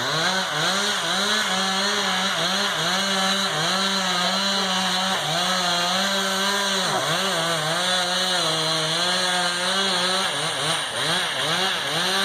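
Two-stroke chainsaw running at high revs while cutting into a dead pine trunk to fell it, its pitch dipping and recovering as the chain bites into the wood.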